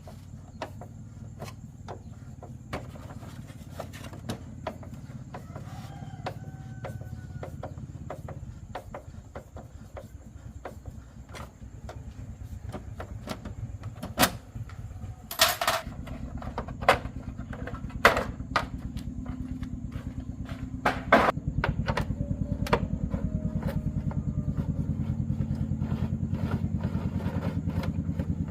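A small 110cc single-cylinder motorcycle engine running steadily with an even low pulse, growing louder in two steps in the second half, with scattered sharp clicks and knocks over it.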